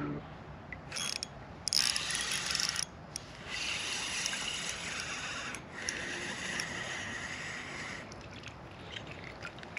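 Shimano Stradic FL 1000 spinning reel being cranked to retrieve line, its gears whirring steadily for several seconds, after a shorter rasp about two seconds in.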